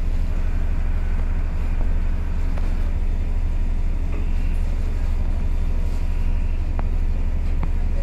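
Steady low rumble of a ship's running machinery, even and unbroken, with a couple of faint clicks near the end.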